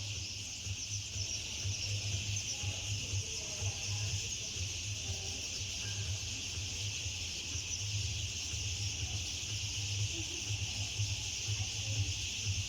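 A dense, steady high-pitched chorus of many birds chattering together as they settle to roost, under a low fluttering rumble.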